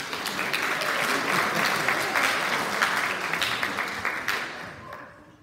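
An audience applauding, with a dense patter of many hands clapping that dies away over the last second or so.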